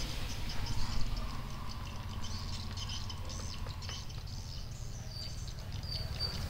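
A kitten eating from a plastic tray: quick, irregular chewing and licking clicks over a steady low background rumble.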